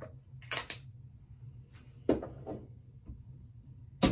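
Small hard containers being handled and set down on a hard surface. There is a short rustle just before one second in, a sharp knock about two seconds in with a lighter knock just after, and a sharp click at the very end, the loudest of them.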